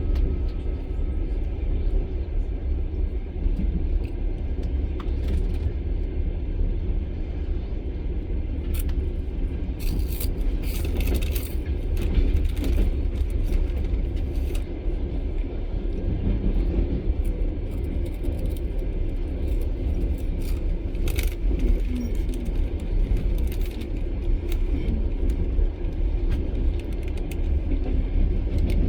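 Russian long-distance passenger train carriage running along the track, heard from inside: a steady low rumble with scattered clicks and rattles from the wheels and fittings, heaviest about a third of the way in.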